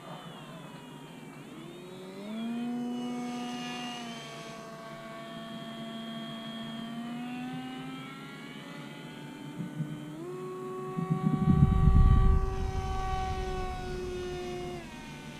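Electric motor and propeller of a Volantex Ranger 757-4 RC plane in flight, a buzzing whine whose pitch steps up and down with the throttle: up about two seconds in, down around eight seconds, up again around ten seconds and down near the end. From about eleven to thirteen seconds a loud low rumble of wind on the microphone covers it.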